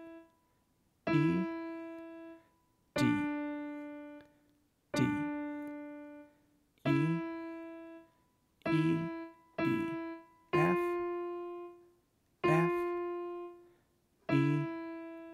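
Piano playing a slow, simple melody one note at a time around middle C, D, E and F. A note is struck about every two seconds and rings and fades before the next, with two quick notes about nine seconds in.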